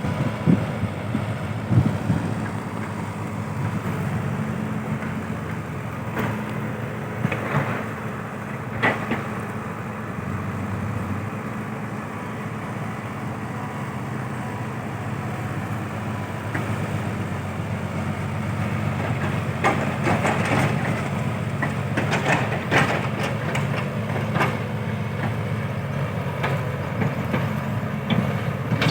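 Steady low engine hum, like a running vehicle, with a few scattered knocks and clicks.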